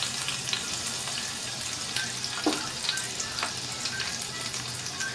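Chopped garlic frying in hot oil in a frying pan: a steady sizzle with a few sharp crackles and pops.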